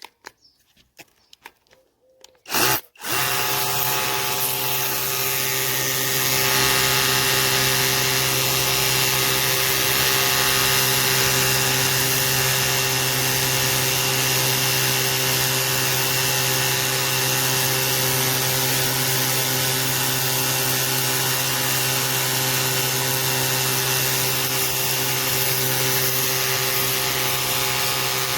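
Battery-powered cordless pressure washer starting up about three seconds in, then running steadily: a motor-pump hum with a broad hiss over it.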